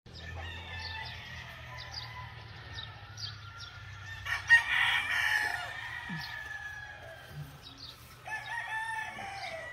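Gamecocks crowing across the yard, with calls overlapping. The loudest, closest crow comes about halfway through and another begins near the end, its pitch falling away.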